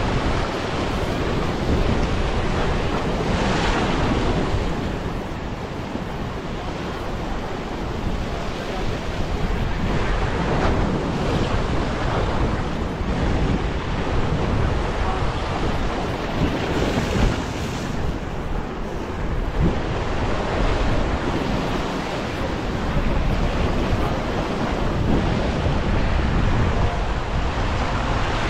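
Ocean surf breaking and washing over a rock ledge, swelling several times, with wind rumbling on the microphone.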